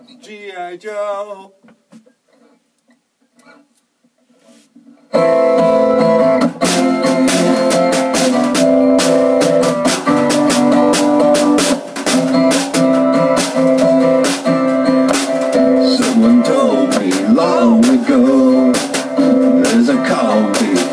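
Acoustic guitar strummed together with a snare drum hit with sticks, starting suddenly about five seconds in and running on as a steady song. Before that comes a short vocal sound, then a few seconds of near quiet.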